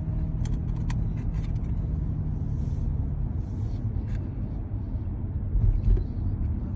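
Steady low rumble of a running vehicle, with a few faint clicks in the first second and a short low thump near the end.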